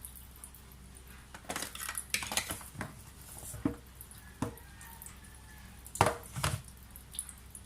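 Kitchen dishes and utensils clinking and knocking during food preparation: scattered clatters, with a louder pair of knocks about six seconds in.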